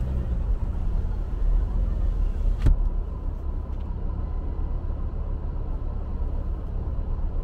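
Low, steady rumble of a car heard from inside its cabin as it drives slowly across an intersection, with a single sharp click a little under three seconds in.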